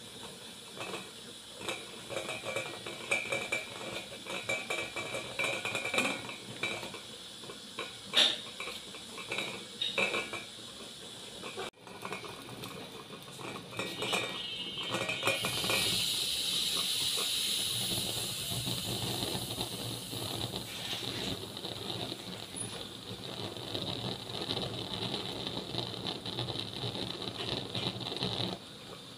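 Dishes and cutlery clinking and knocking, then about halfway through a steady hiss of cooking fire on the stove sets in.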